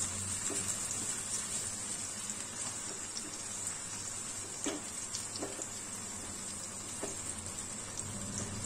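Chopped onions and tomato purée frying in oil in a nonstick kadai, a steady soft sizzle as the masala is sautéed (kasha) together, with a wooden spatula stirring and giving a few faint knocks against the pan.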